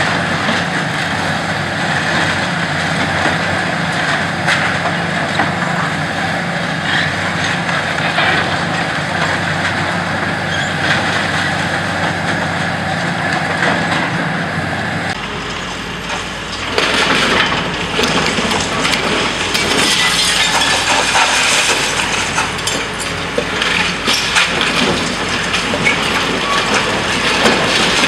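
High-reach demolition excavator running its diesel engine while its jaws tear at a concrete-frame building, with concrete crunching and rubble falling. About halfway through the sound changes abruptly and becomes louder, with many short crashes and clatters of debris.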